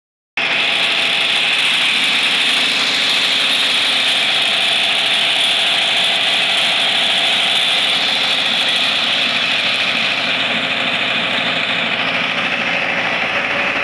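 Belt-driven atta chakki (KAM steel-body flour mill, model 45x40, rated 4000 rpm) running at speed: a loud, steady whirring rush.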